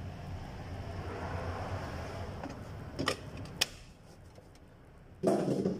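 A plastic engine-oil bottle being handled at the oil filler during an oil top-up: two sharp clicks about three seconds in, then a louder dull knock near the end, over a steady low hum.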